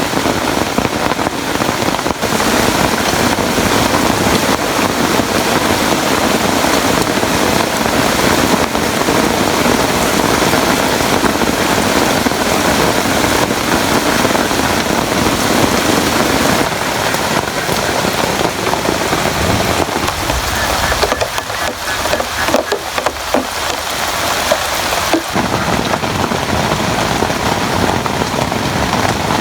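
Steady, loud rain falling. Its deeper part eases off for several seconds past the middle.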